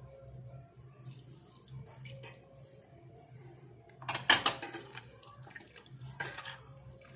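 Soy sauce poured from a bottle over pork belly in a bowl, splashing in a short loud burst about four seconds in and again briefly near six seconds.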